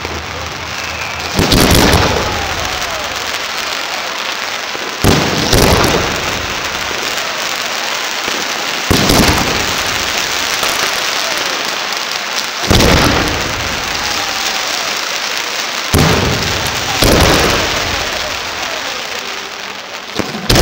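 Aerial firework shells bursting: about eight loud bangs a few seconds apart, two of them in close pairs, with a steady crackling hiss between them.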